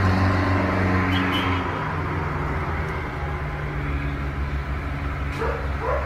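A steady low hum throughout, with a dog giving two short rising whimpers near the end.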